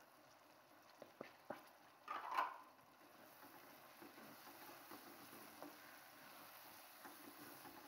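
Faint cooking sounds from a pan of frying peas and spinach: a few light clicks about a second in, a short rustle a little after two seconds, then a soft, steady sizzle.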